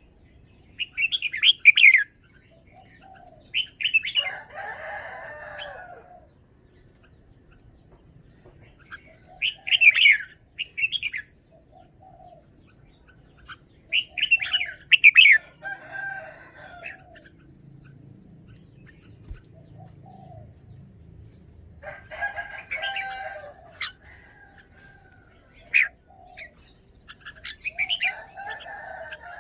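Red-whiskered bulbul singing: short, bright warbled phrases repeated about six times with pauses between them, alongside lower, rougher calls.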